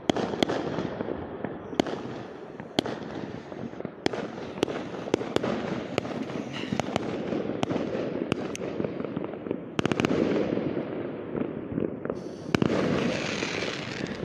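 Fireworks and firecrackers going off at night: a continuous rumble of bangs and crackling with many sharp, louder reports scattered through it, and a dense volley of bangs about ten seconds in.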